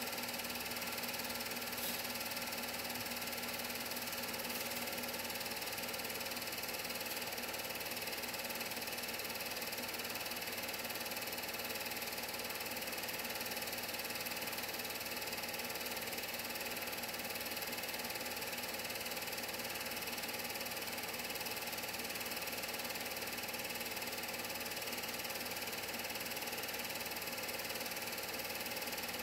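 Film projector running steadily: an even mechanical drone with many fixed tones that does not change.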